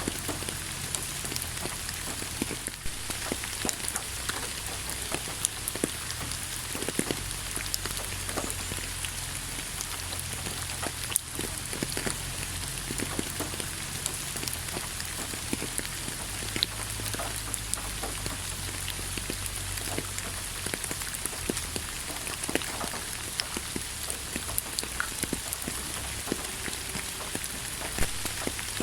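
Steady rain falling, with frequent sharp clicks of single drops striking close by and a low rumble underneath.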